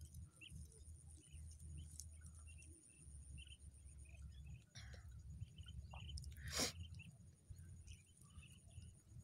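Faint ambience: a low steady rumble, a thin steady high tone and scattered soft crackles and chirps, with one sharp snap about six and a half seconds in.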